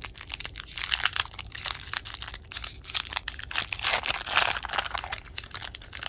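Foil wrapper of a hockey card pack crinkling as it is handled and torn open: a dense run of crackles, loudest about a second in and again around four seconds in.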